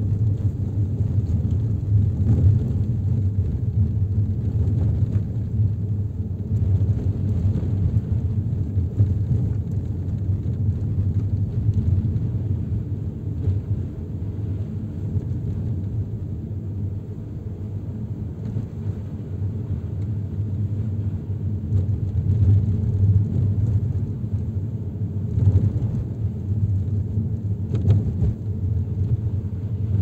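Car driving along a road: a steady low rumble of engine and tyres.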